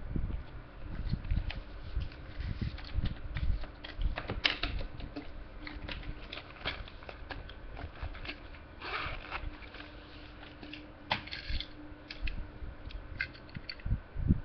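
Hands handling a plastic pouch and pin-back button badges close to the microphone: scattered clicks, rustling and low bumps, with a burst of plastic crinkling about nine seconds in. A faint steady hum runs underneath.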